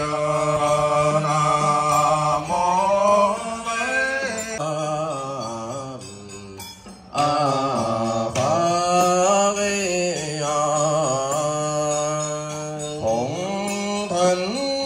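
A single voice singing a slow, melodic chant in long held, wavering notes with slides in pitch, breaking off briefly about six seconds in.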